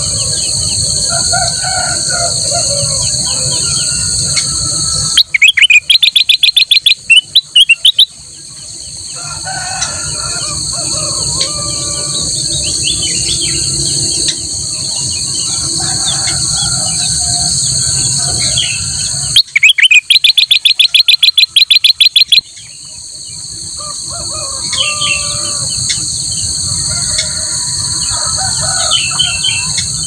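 Caged kutilang emas (ruby-throated bulbul) singing in scattered chirps, twice breaking into a loud, rapid chattering burst of about three seconds, a few seconds in and again past the middle. A steady high insect drone runs behind it.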